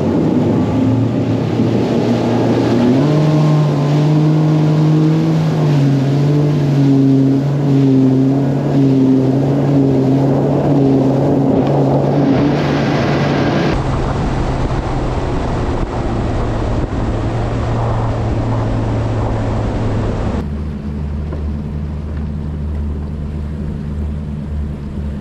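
Mercury Pro XS FourStroke outboard on a bass boat running at speed, with wind and the hull slapping across wakes. The engine note rises about three seconds in. It changes abruptly twice, ending as a steadier, lower drone.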